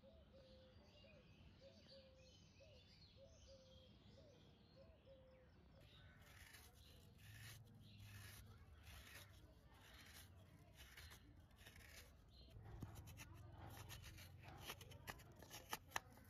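Faint rasping of a hand scraper grating fresh coconut flesh out of a half shell in repeated strokes, starting about six seconds in and growing louder and quicker toward the end, with a few sharp clicks near the end.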